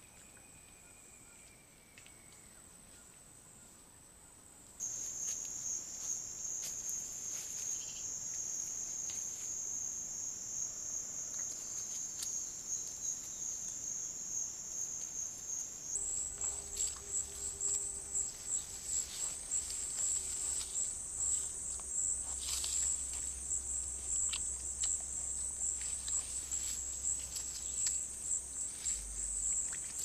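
Steady, high-pitched trilling chorus of night insects in the forest. The pitch and loudness change abruptly about 5 seconds in and again around 16 seconds. From about 16 seconds on, faint scattered rustles and ticks and a faint low hum come in.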